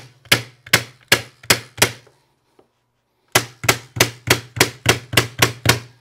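Electric staple gun firing staples into carpet underpad in quick succession, about three sharp shots a second. The shots come in two runs with a pause of about a second between them, and a low electric hum sits under each run.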